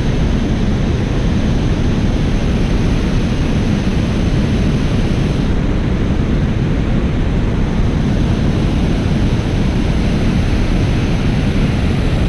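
Steady rush of water spilling over a low dam spillway and churning below it, heavy in low rumble.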